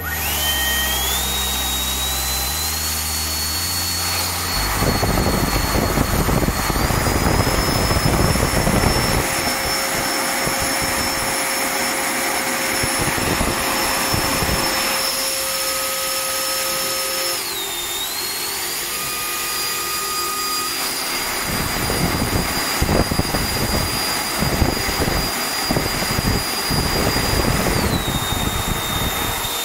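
Schübeler electric ducted fan running up on a test stand. Its high whine steps up in pitch over the first seconds, dips briefly just past halfway, and drops again near the end. The rush of the fan's air blasting through the carbon-fibre thrust reverser nozzle is heavy from about five seconds in.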